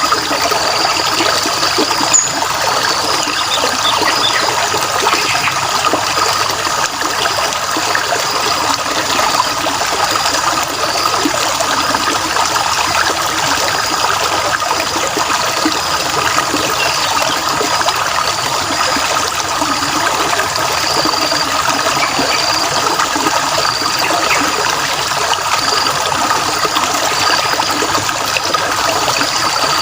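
Water trickling steadily, with a faint high-pitched chirping running through it.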